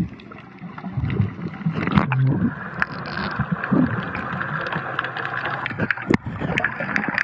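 Water sloshing and gurgling around the camera, a steady rushing noise with many small clicks and knocks through it.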